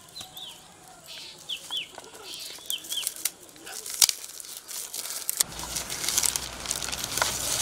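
Birds calling with short chirps that fall in pitch, mostly in pairs, then a sharp snap about four seconds in. From about five and a half seconds, gift-wrapping paper and newspaper are torn and crinkled as a wrapped frame is unwrapped.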